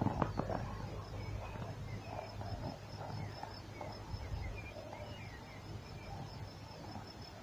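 Outdoor nature sounds: short bird chirps scattered over a steady, pulsing high insect trill, with a low steady rumble underneath. A few sharp knocks sound right at the start.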